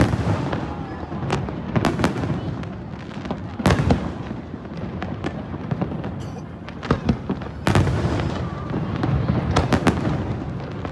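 Aerial fireworks going off in an irregular run of sharp bangs and crackles over a continuous low rumble, with the heaviest bangs about four and eight seconds in.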